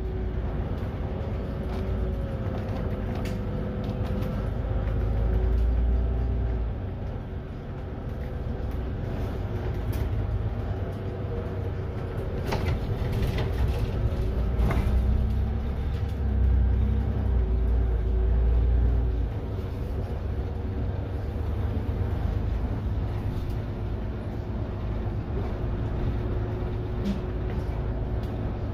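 Solaris Urbino 12 IV city bus heard from inside while driving: a steady rumble of engine and road with a constant whine, swelling twice as the bus pulls harder, about a fifth of the way in and again past halfway. A few short knocks and rattles come just before halfway.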